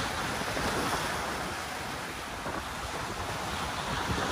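Surf breaking and washing over jetty rocks, a steady rush that swells slightly near the start and the end, with wind buffeting the microphone.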